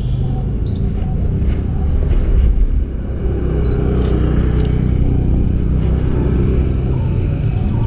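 Road traffic: a motor vehicle's engine running close by, a steady low rumble.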